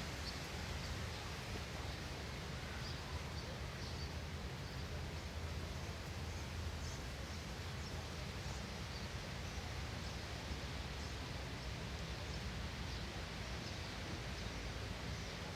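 Quiet, steady background noise with a low hum, and faint, scattered high-pitched chirps.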